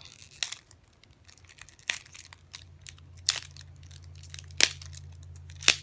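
Foil Yu-Gi-Oh booster pack being torn open and crinkled, with a handful of sharp crackles spread through.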